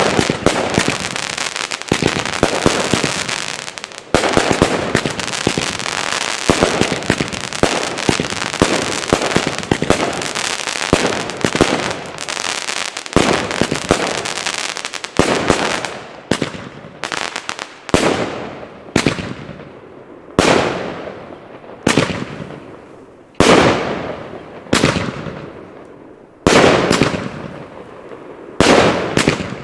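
Linked F2 consumer firework batteries firing: a dense, unbroken barrage of bangs and crackle for about half the time, then single loud reports about once a second, each trailing off.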